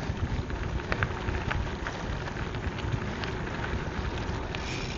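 Bicycle tyres rolling over a gravel trail: a steady crackling hiss with scattered small clicks of grit and stones.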